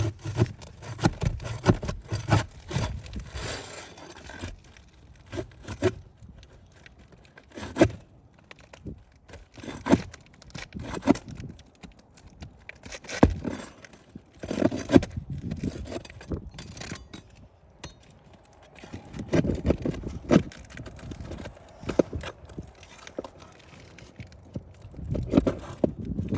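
Hand work on roof shingles: irregular scraping and crackling of shingles being lifted and worked, with scattered sharp knocks and clicks.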